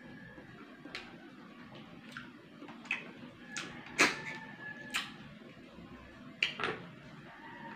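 Close-up eating sounds of cooked snails being sucked out of their shells: a run of sharp wet mouth smacks and sucks about once a second, the loudest about four seconds in, with a brief thin squeak in the middle.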